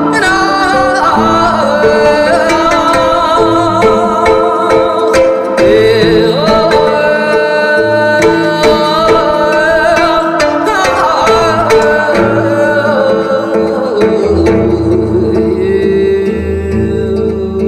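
Korean traditional-style vocal music in the Gyeonggi folk-song manner: a singer's voice with wavering pitch over instrumental accompaniment and percussion strokes. A low, steady bass note comes in near the end.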